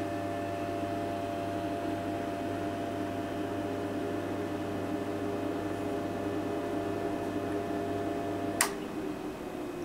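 Steady low mains hum with faint steady whine tones from powered bench electronics, cut off by a single sharp switch click about eight and a half seconds in.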